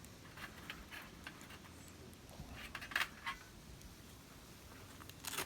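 Scattered light clicks and taps of small camping gear being handled, the sharpest about three seconds in with a second one just after it.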